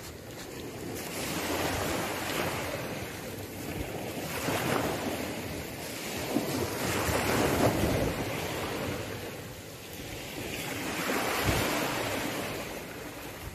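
Small sea waves breaking and washing up a pebble beach, swelling and fading in surges every few seconds, with wind blowing across the microphone.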